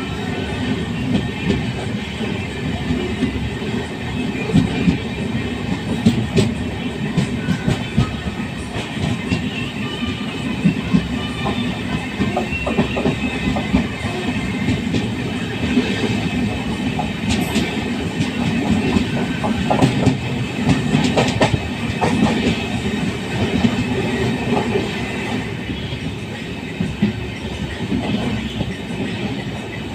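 The Trivandrum–Chennai Special Mail passenger train running at speed, heard from inside a coach: a steady rumble with the wheels clacking over rail joints and scattered knocks throughout.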